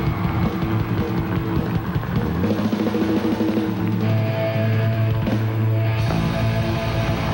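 Rock band playing live: electric guitars over a drum kit.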